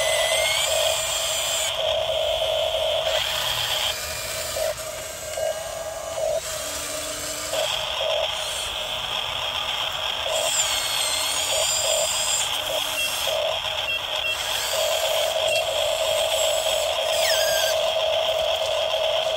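Small electric gear motors of a radio-controlled model excavator and bulldozer whining as they work, the whine cutting out and restarting several times, with brief rising and falling pitch glides.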